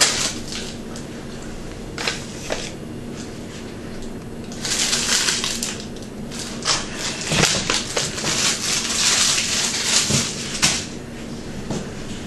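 Clear plastic bag crinkling and rustling as it is handled: two short crinkles, then a longer run of crackling rustles that stops shortly before the end. A steady low hum sits underneath.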